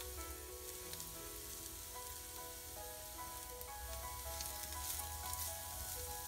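Green beans and carrots sizzling steadily in hot ghee in an enameled Dutch oven, with a wooden spoon stirring them in the second half, over soft background music.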